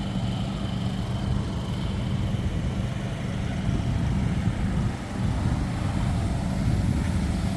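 Electric inflatable blower running steadily, a constant motor hum with rushing air, keeping the bounce house inflated.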